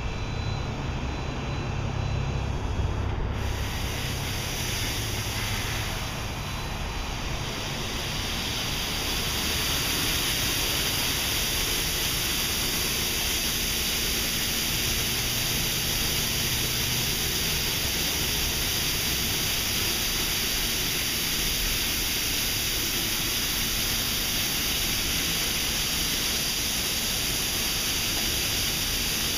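Belanger Saber SL2 automatic car wash: a low machine rumble at first, then from about three seconds in a steady hiss of the wash arms spraying water onto the car, growing fuller and holding even.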